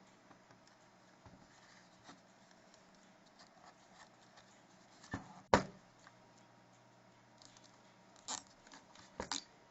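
Hands handling parts of a winding jig: a few sharp clicks and knocks, the loudest about five and a half seconds in, with more near the end.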